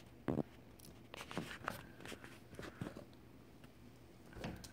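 Faint rustling and scattered soft clicks of a baby shifting on a carpeted floor, with one short louder sound about a third of a second in.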